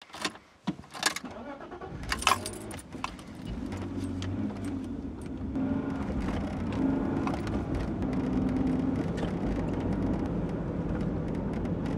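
Bunch of keys jangling as the ignition key of a 1994 BMW 320i (E36) is turned, then its straight-six engine starts about two seconds in and runs at a steady idle.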